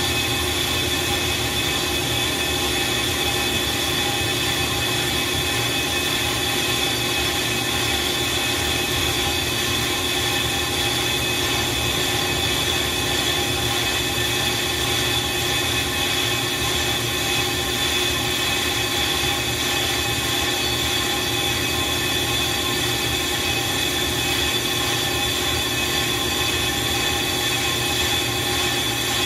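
Brake lathe refacing a brake rotor disc: a steady, unbroken whine with a strong high-pitched ringing tone from the cutting bit skimming the rotor face.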